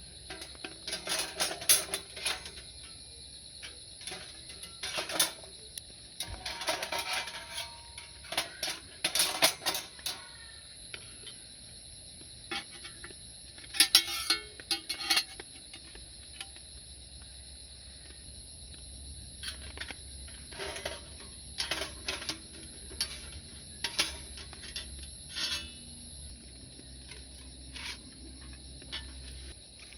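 Crickets or other insects chirring steadily and high, with intermittent sharp metallic clinks and clatter of gear being handled, busiest in the first ten seconds and again around 14 seconds.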